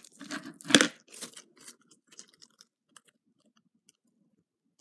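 Fluffy slime being stretched and squeezed by hand, crackling and popping wetly as air bubbles in it burst. The pops are thickest in the first two seconds, loudest about a second in, then thin out to a few faint ticks.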